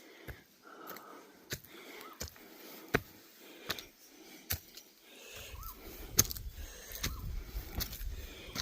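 Heavy, wheezing breathing of a hiker on a steep climb, with scattered sharp clicks. From about five seconds in, wind buffets the microphone with a low rumble.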